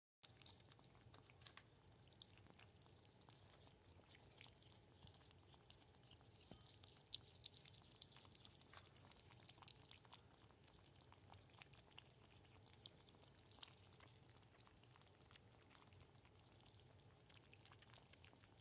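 Ferrets lapping water from a bowl: faint, irregular wet clicks, a few louder around seven to eight seconds in, over a low steady hum.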